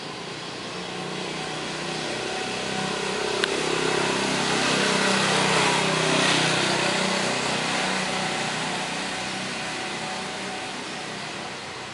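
A car passing by: engine and tyre noise swells over a few seconds, peaks near the middle, then fades away. One sharp click about three and a half seconds in.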